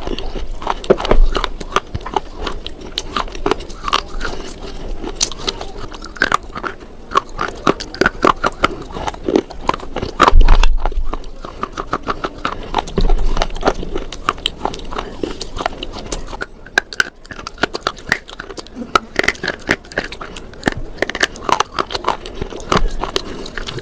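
A person biting and chewing hard, brittle slate, with many sharp crunches in quick succession and a louder bite about ten seconds in.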